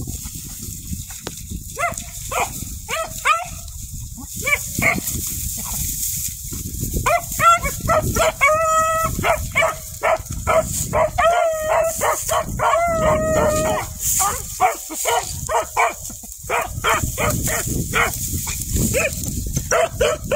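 Dogs barking repeatedly in short pitched barks, with a run of longer drawn-out bays in the middle.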